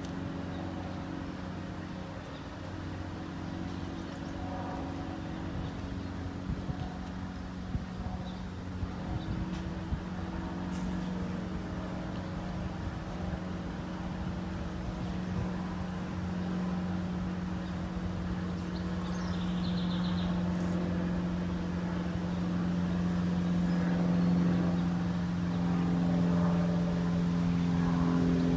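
A steady, low machine drone from an engine or motor, slowly growing louder, with a few faint small clicks in the first half and a brief high chirp about two-thirds of the way through.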